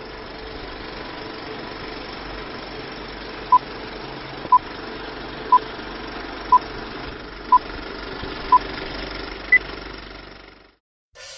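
Film-leader countdown sound effect: the steady whir and crackle of an old film projector running, with a short beep about once a second, six in all, then one higher-pitched beep, before it all cuts off suddenly near the end.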